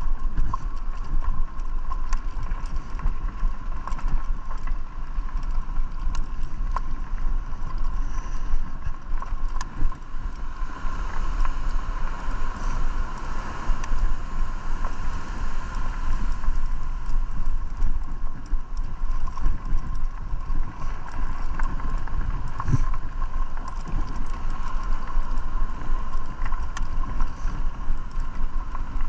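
Electric bike rolling over a gravel path: a steady rumble with scattered crunching clicks from the tyres on the loose stones, and a constant thin whine running underneath.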